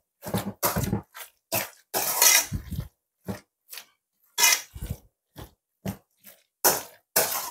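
A spoon stirring mayonnaise-dressed shredded cabbage and carrot in a stainless steel bowl: a quick, uneven run of short wet crunching strokes.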